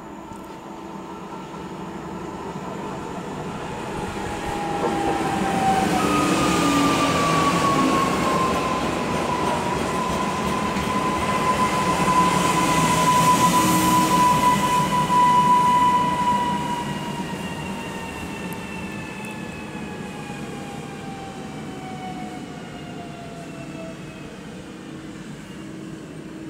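PolRegio EN63A (PESA Elf) electric multiple unit passing close by: the rumble of its wheels on the rails builds, is loudest for about ten seconds, then fades. Over the rumble runs an electric motor whine that slides steadily lower in pitch as the train slows.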